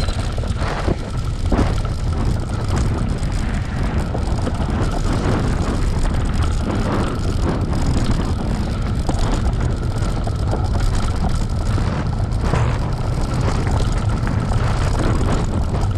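Bicycle rolling fast over a trail while towed by a running dog: a steady rumble of tyres and frame, with wind buffeting the microphone.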